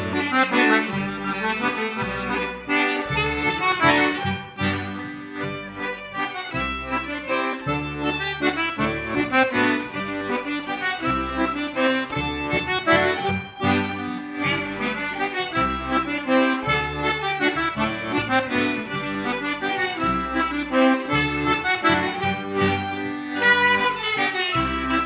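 Folk dance tune played by a small pelimanni ensemble of Beltuna button accordions, two violins, clarinet and double bass. The accordion is to the fore, over a steady line of low bass notes.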